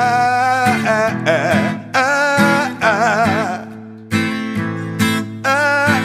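Background song: acoustic guitar accompaniment under a sung melody of long, wavering held notes.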